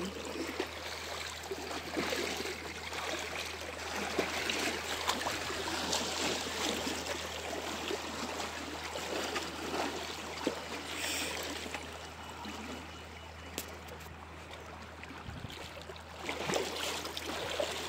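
Water lapping and trickling against a small boat, with scattered small knocks and clicks and a steady low hum underneath.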